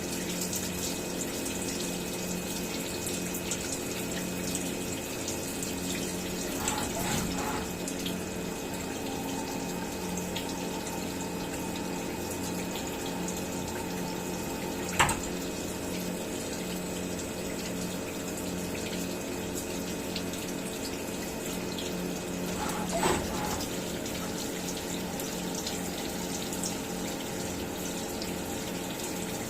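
CNC milling machine running steadily: a constant hum with a rushing hiss over it, and a few short sharp clicks about a quarter, half and three-quarters of the way through.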